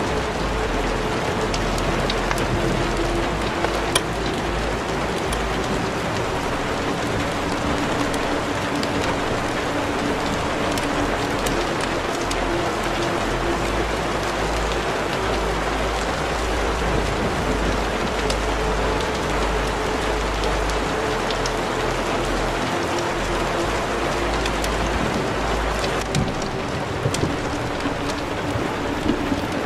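Steady rain-like hiss with scattered soft crackles, and faint held musical tones underneath.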